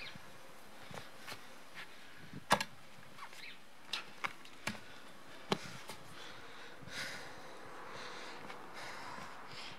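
Tyre irons knocking and clicking against a car wheel rim as a tyre is levered onto it by hand, with scattered single knocks: the loudest about two and a half seconds in, and several more between about four and five and a half seconds.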